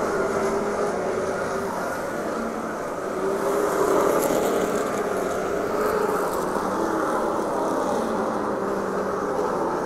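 Race car engine running at speed during a feature race, its pitch rising and falling, with a swell about four seconds in.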